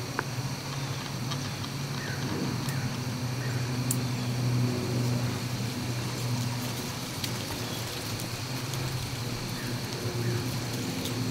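A steady low hum, like a distant engine, under faint outdoor background noise.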